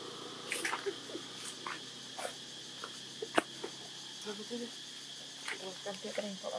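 Steady high insect drone with scattered sharp clicks, the loudest a little over three seconds in, and a few short low calls in the second half.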